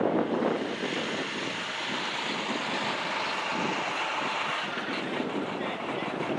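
Steady traffic noise from cars and pickup trucks passing on a road, swelling gently and easing off again, with a brief louder burst right at the start.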